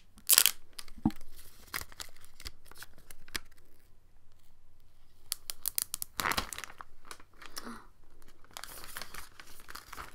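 Clear plastic shrink-wrap being torn and peeled off a smartphone box, crinkling and crackling, with sharp rips about half a second in and again around six seconds in.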